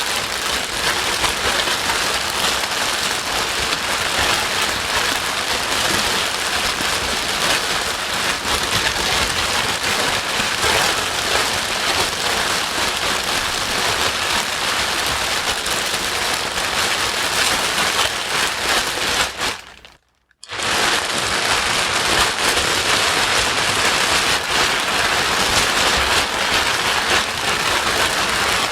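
White-noise track of steady, dense rain hiss, played loud and even. About two-thirds of the way through it fades out to silence for about half a second and then comes straight back.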